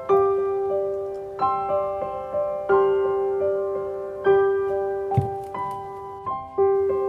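Slow background piano music, with new notes struck about every second and a half and left to ring out between strikes.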